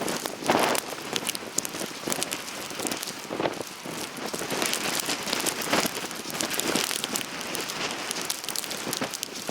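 Falling snow in a snowstorm: a steady hiss with many irregular crackling ticks, as of grains striking close by, and a few louder swells.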